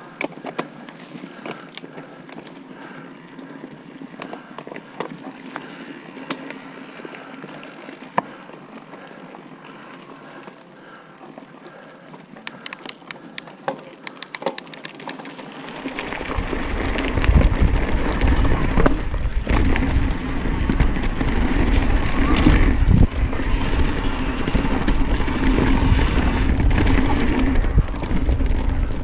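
Mountain bike ridden on dirt singletrack: light clicks and rattles from the bike at first, with a run of rapid ticking around the middle. About sixteen seconds in, loud rumbling tyre and wind noise rises sharply as the bike gathers speed downhill and stays.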